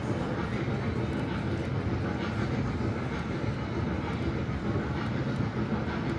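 Steady rumble of a small trackless ride-on train rolling over a smooth floor.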